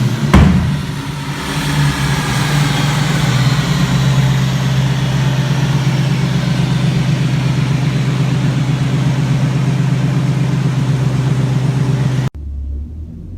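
A tuned performance car engine: a sharp backfire bang just after the start, then the engine running at a steady speed for about twelve seconds before the sound cuts off abruptly near the end.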